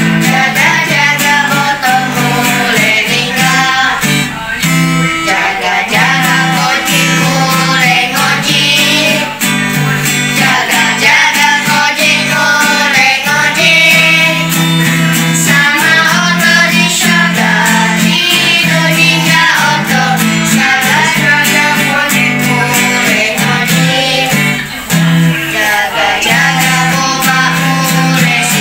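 Children singing a song to strummed acoustic guitar.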